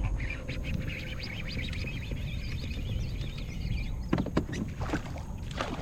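Low rumble of water and hull noise on a fishing kayak, with a few light knocks in the last two seconds.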